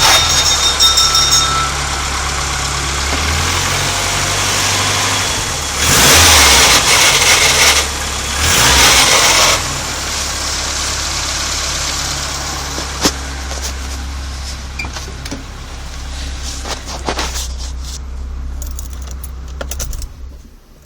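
1989 Nissan Sunny engine idling, briefly revved twice, then switched off near the end.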